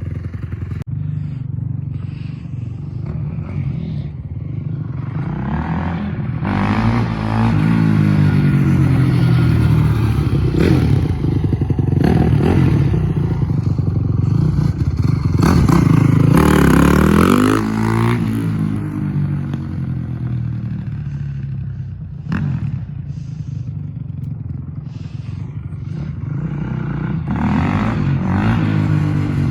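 2005 Honda CRF450's single-cylinder four-stroke engine running as the dirt bike is ridden, revving up and easing off several times. It is loudest around the middle.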